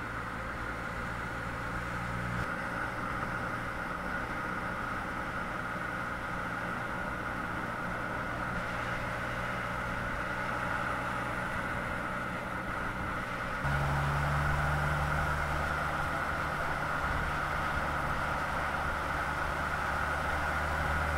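Road vehicle running at speed: steady tyre and road noise with a low hum. The hum shifts abruptly about two and a half seconds in and again about fourteen seconds in, where the sound grows a little louder.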